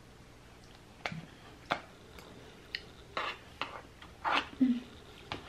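Eating sounds: a few sharp clicks like cutlery on a plate, then several short crunchy bites.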